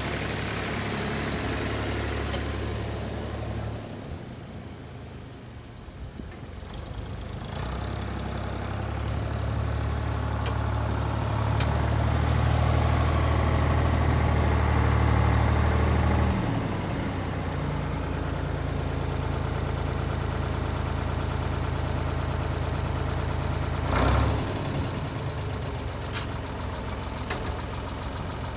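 Ford 4000 tractor's three-cylinder engine running steadily, growing louder as it works close by, then easing to a steady run. A single short knock about three-quarters of the way through.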